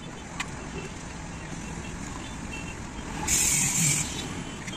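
Steady street-traffic noise with a few faint clicks, and a sharp hiss of air lasting under a second about three seconds in.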